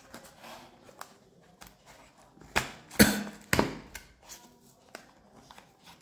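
Cardboard retail box being opened by hand: scattered scrapes, taps and rustles of the flaps and inner tray, with a few louder knocks about two and a half to three and a half seconds in.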